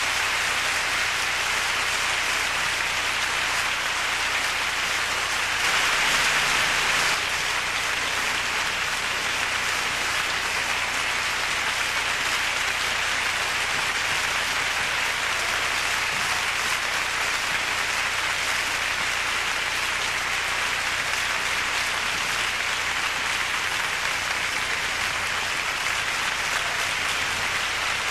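Theatre audience applauding steadily after a ballet performance ends, with a brief louder swell about six seconds in.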